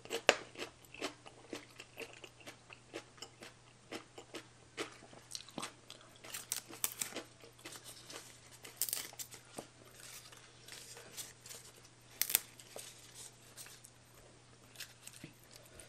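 Close-up chewing and crunching of a spicy baby cuttlefish salad with crisp raw vegetables: many quick, irregular crunches.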